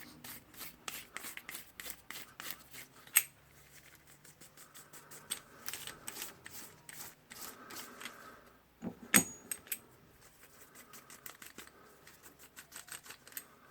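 Small metal clicks and scrapes as a spring retaining ring is pressed down onto a rotary hammer's tool holder with a hand tool. There is a sharper click about three seconds in and the loudest snap just after nine seconds.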